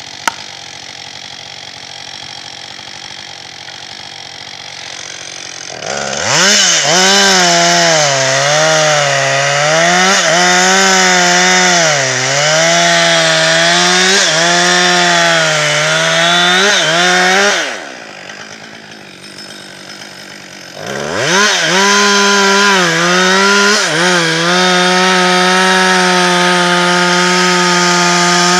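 Two-stroke chainsaw cutting into a beech trunk. It idles for about six seconds, then runs at full throttle in the wood, its pitch sagging and recovering under load. About seventeen seconds in it drops back to idle for about three seconds, then revs up and cuts again.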